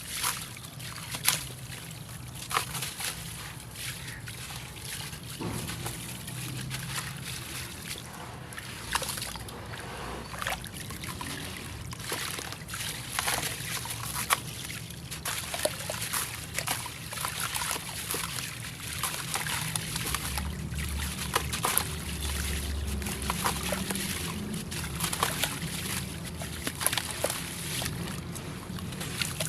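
Dry, crumbly concrete being dipped in water: sloshing and trickling, with many small crackles and clicks as the pieces soak and break up.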